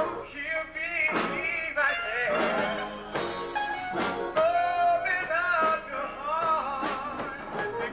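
Gospel music: a male soloist sings lead with a mass choir, his voice bending and sliding through the melody.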